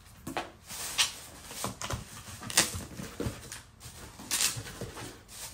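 Cardboard box flaps being pulled open and the plastic wrapping around a packed tent crinkling as hands work it, in a string of short rustles and scrapes about every half second.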